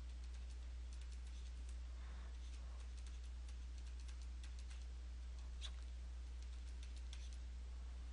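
Stylus tapping and clicking on a drawing tablet while an equation is handwritten: light, irregular clicks, several a second, over a steady low electrical hum.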